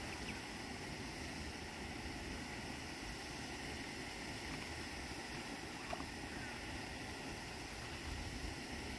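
Steady outdoor wind noise with a gusty low rumble on the microphone, with a couple of faint short high sounds near the start and about six seconds in.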